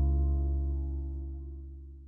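The last held chord of a song fading out. Its higher notes die away about a second in, and the deep low notes ring on, growing steadily fainter.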